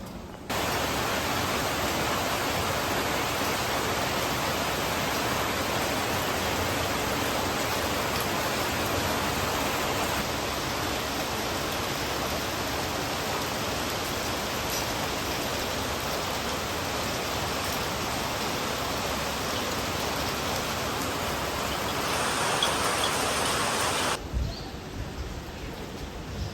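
Heavy monsoon rain pouring steadily, an even dense hiss. It starts abruptly about half a second in and cuts off suddenly a couple of seconds before the end.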